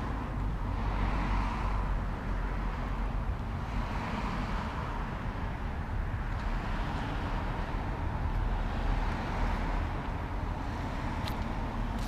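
Road traffic: cars passing one after another every two to three seconds, each a swelling and fading whoosh over a steady low rumble.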